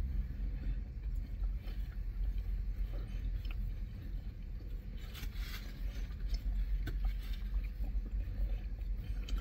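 Two people chewing and eating Chicken Big Mac sandwiches: small wet mouth clicks and a brief rustle about halfway through. Underneath is a steady low rumble of the car cabin.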